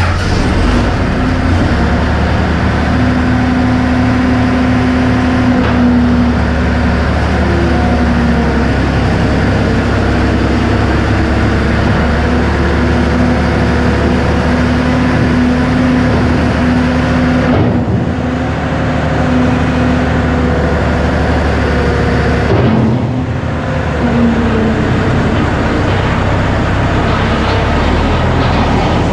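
New Holland C185 compact track loader's diesel engine running loud and steady as the machine drives, briefly easing off twice.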